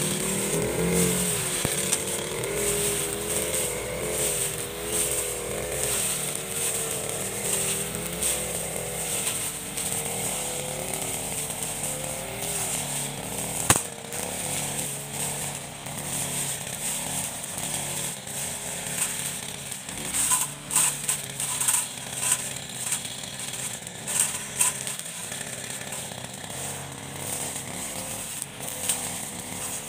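Backpack brush cutter engine running at high speed while its cutting head slices through tall grass and weeds, the engine pitch wavering as it takes the load. A single sharp knock about halfway through, and a run of louder strikes a little later.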